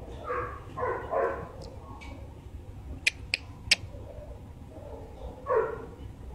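Pit bull dog whining in short pitched calls, three close together in the first second and a half and one falling whine near the end, with three sharp clicks in between.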